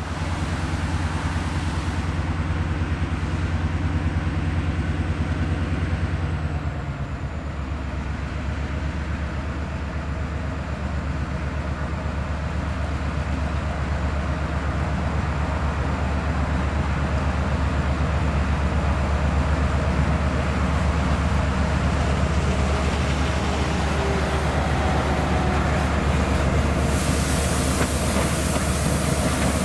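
EMD four-axle diesel road-switcher locomotives running at low throttle as a slow train approaches and rolls past, a steady deep engine drone whose note steps down about seven seconds in. A hiss of wheel and rail noise comes in near the end as the cars pass close.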